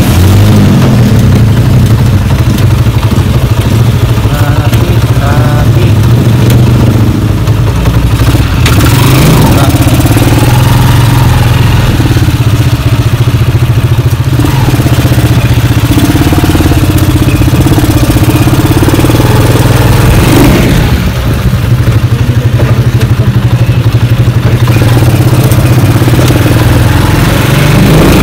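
A motorcycle engine running loudly right by the microphone, heard from inside a tricycle sidecar as it rides. The engine note is mostly steady, with a few rises and dips in pitch as the throttle changes, and a brief drop about two-thirds of the way in.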